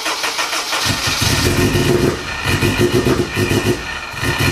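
A supercharged 2004 Honda S2000's 2.2-litre four-cylinder engine struggling to start, firing in uneven pulsing runs that falter and pick up again: the engine is flooded with fuel.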